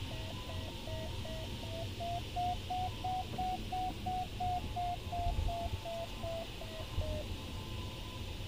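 Glider's audio variometer beeping nearly three times a second, its pitch rising and then falling back before it stops near the end: the sign of the glider climbing in a thermal, the climb strengthening and then easing off. Underneath is the steady rush of air noise in the cockpit.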